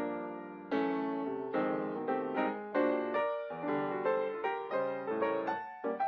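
Background music: chords and melody notes struck and left to fade, a new note or chord about every half second.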